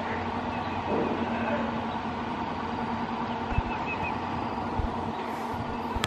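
Penang Hill funicular train running on its track, a steady mechanical hum, with a couple of low thumps in the second half.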